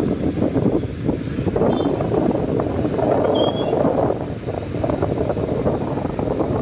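Wind buffeting the microphone of a moving motorcycle, with steady riding noise underneath. Two brief high chirps cut through, about two and three and a half seconds in.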